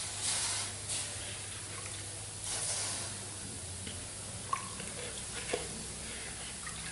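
Water splashed by hand onto a hot Cerakote-coated two-stroke motorcycle exhaust, sizzling into steam in two short hisses, near the start and about two and a half seconds in, followed by a few light drips and ticks.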